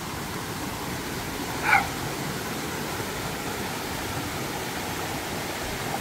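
Mountain stream rushing over rocks and small cascades, a steady full water noise. About two seconds in, one short, high call falls in pitch over it.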